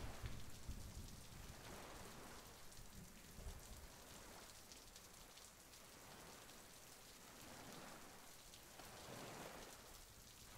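Faint, scratchy rubbing of a metal spoon stylus drawn across tooling leather, coming in soft swells every second or two as it rubs down the bevels along the carved lines.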